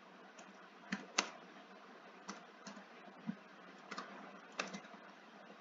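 Computer keyboard keys clicking as text is typed: about a dozen separate, irregular keystrokes, faint, over a low hum.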